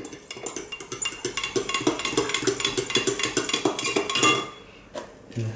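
A spoon stirring quickly in a ceramic mug, clinking against the sides several times a second as scoops of protein powder are mixed into a drink. The clinking stops about four seconds in.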